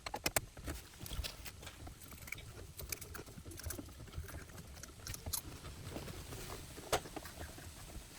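Scattered light clicks and scrapes of a socket wrench with a 10 mm socket on an extension working on a car radio's mounting bolts. The clicks are irregular, with slightly louder ones just after the start and about seven seconds in.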